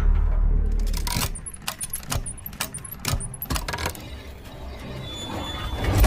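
Sound effects for an animated machine intro: a deep boom fading out, then a run of sharp metallic clicks and clanks, and a rising rumble that builds into another deep boom at the end.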